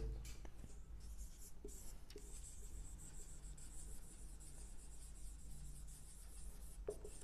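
Marker pen writing on a whiteboard: faint rubbing, squeaky strokes as a word is written out.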